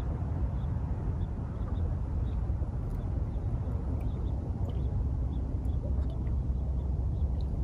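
Steady low outdoor rumble with no clear events, with a few faint short high chirps scattered through it.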